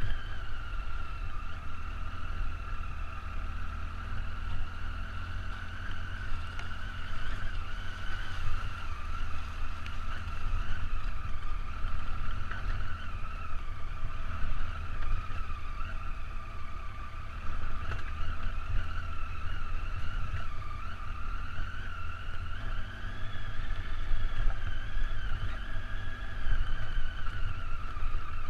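Triumph Tiger motorcycle engine running on a rough dirt track, its pitch rising and falling gently with the throttle, over a constant low rumble of wind and road noise on the helmet camera.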